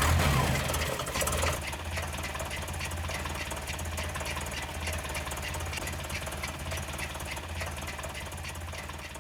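1972 VW Beetle's rebuilt 1600cc air-cooled flat-four engine idling with an even, rapid ticking, its tappet noise gone after the overhaul. Louder for about the first second and a half, then steady.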